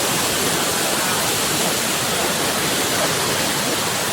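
Waterfall rushing: a loud, steady roar of falling water, even throughout.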